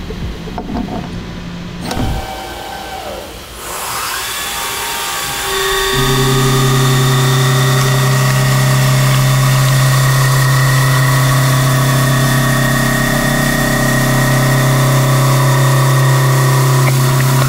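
1¼-inch Kennametal HARVI I TE carbide end mill taking a heavy milling cut on a 100 HP CNC machine spindle. After a few quieter seconds the cut builds up, and from about six seconds in it settles into a loud, steady hum: a strong low tone with higher steady overtones over a rush of noise.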